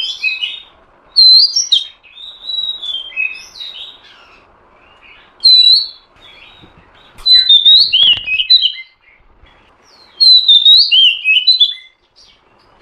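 Female oriental magpie-robin (kacer) calling in separate bursts of quick, high chirpy whistled notes, with short pauses between the bursts. This is the female call used to provoke a male kacer into singing.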